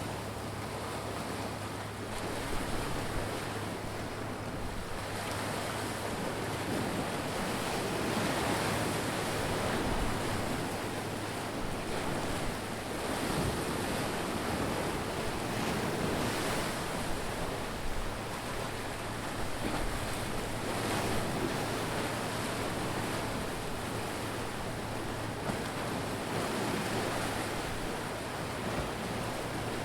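Ocean waves surging and washing in, a continuous rushing noise that swells every several seconds, with a low steady hum underneath.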